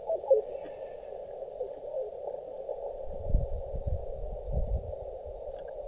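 Xiegu G90 HF transceiver's receiver audio: band noise hissing through a narrow CW filter, with a few faint, brief Morse tones coming and going. A few low thumps around the middle.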